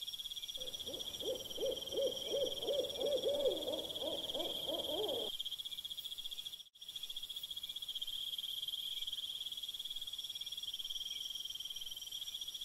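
Night ambience: insects chirring steadily on one high pitch, with a low, quavering, hoot-like call over them for about the first five seconds. The sound cuts out for an instant midway.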